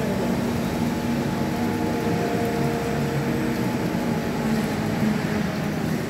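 Rotary milking parlour machinery running, a steady mechanical hum of the milking equipment and turning platform with milking units attached to the cows.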